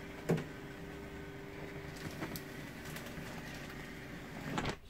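Electric drop-down bed lift in a motorhome raising the bed back up into the roof: a click about a third of a second in as the motor starts, then a steady motor hum that stops just before the end.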